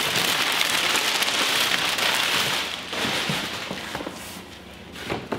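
Packing paper and bubble wrap crinkling and rustling as they are handled inside a cardboard box. The sound is loud and continuous for the first half, then fades to a few scattered crinkles and clicks.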